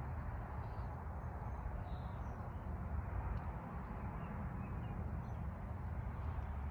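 Garden ambience: a few faint bird chirps over a steady low background rumble.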